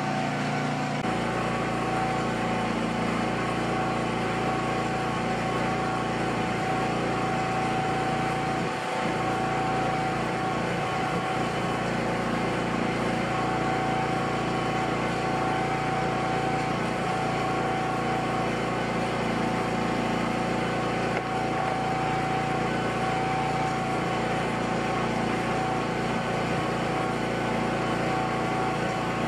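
A motor running with a steady, unchanging hum.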